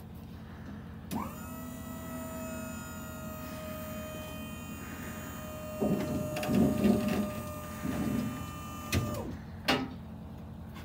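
Electric-over-hydraulic pump on a deckover trailer spinning up with a rising whine, then running at a steady pitch for about eight seconds as the dovetail ramps lower. The steel ramps clunk and rattle in the last few seconds before the pump winds down with a falling whine, and two sharp clicks follow. A steady low hum runs underneath.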